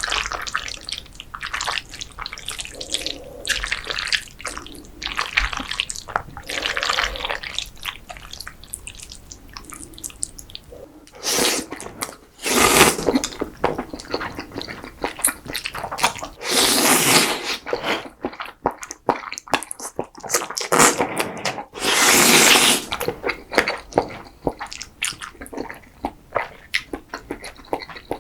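Close-miked eating of creamy pasta and risotto: wet chewing and lip-smacking with small clicks throughout, and four louder, longer wet slurps of about a second or two each, from the middle on.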